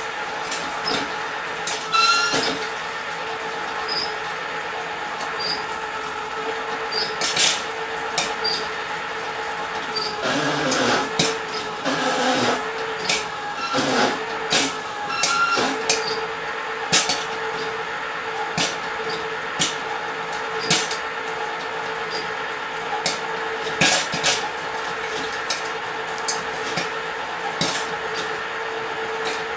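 Popcorn kernels popping in the kettles of two small countertop popcorn machines: scattered, irregular sharp pops over the steady hum of the machines running.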